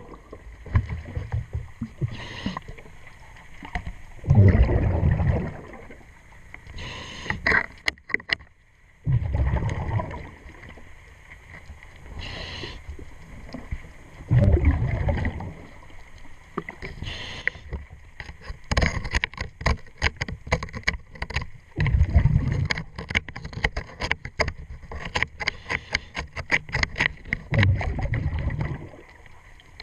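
A diver's breathing regulator heard underwater: a short hiss on each breath in, then a loud, low burble of exhaust bubbles on each breath out, repeating every few seconds. From about two-thirds of the way through, a run of rapid sharp clicks and taps sounds over the breathing.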